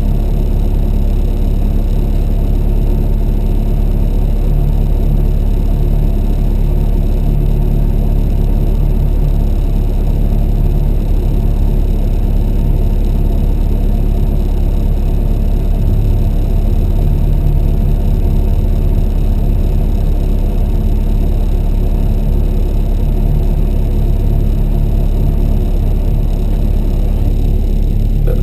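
Loud, steady engine rumble of a Mk1 Ford Escort with a swapped-in Ford Zetec four-cylinder, heard from inside the cabin, with its energy concentrated low.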